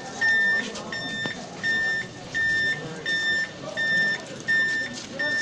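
Electronic beeper on a model army missile truck sounding a steady, evenly repeating beep, like a reversing alarm, about three beeps every two seconds.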